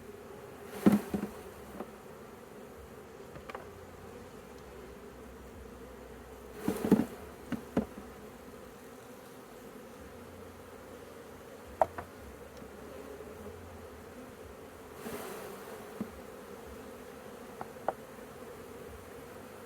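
Honeybees buzzing steadily around an opened hive, with a few sharp knocks and scrapes, the loudest about a second in and around seven seconds in.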